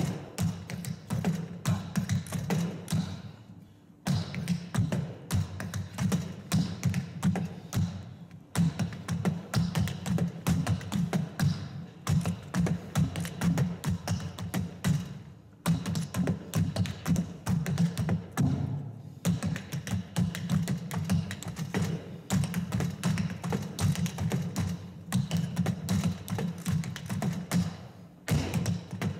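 Tap dancing: shoes striking a wooden tap board in fast, dense rhythmic patterns of heel and toe taps, broken by a few short pauses.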